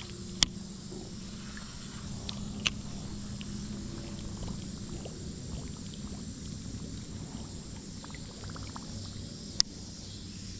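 Gentle water sounds around a drifting kayak, broken by three sharp clicks or taps: about half a second in, near three seconds, and near the end. A faint steady insect buzz sits high above.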